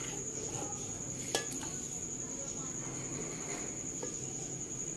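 A steady high-pitched tone over a low hum, with one sharp clink about a second and a half in as a metal spoon strikes the aluminium pot while masala is spooned onto the rice.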